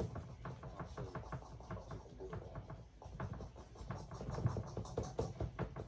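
A paintbrush dabbing and scratching against a stretched canvas: a quick, irregular run of soft taps and scrapes.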